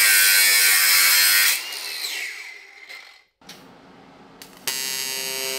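A bench grinder grinding metal, then spinning down with a falling whine after about a second and a half. After a short break, an AC TIG welder's arc starts buzzing steadily on aluminium near the end.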